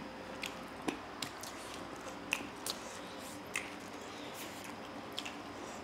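Eating by hand: faint chewing with scattered short, wet clicks and smacks, roughly one every half second to second.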